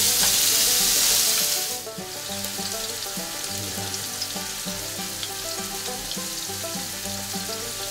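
Ground beef frying in a nonstick frying pan, sizzling loudly. About two seconds in, it drops to a softer sizzle.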